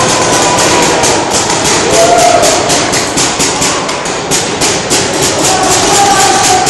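Paintball markers firing in rapid strings: a dense rattle of sharp pops, several a second, with voices calling out over it.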